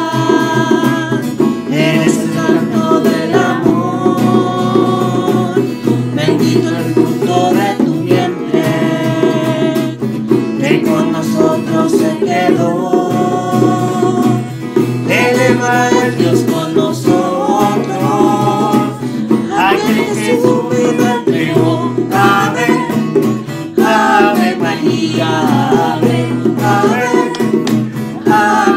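Mixed voices singing a song together, accompanied by strummed acoustic guitars, electric bass and hand drums.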